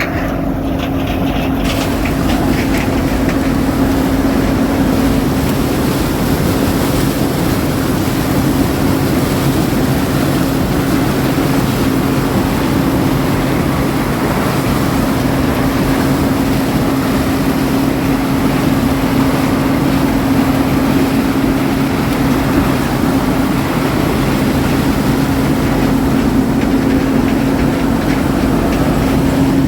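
Farm harvesting machinery running steadily: an engine drone with a constant hum and a dense rush of mechanical noise, unchanging throughout.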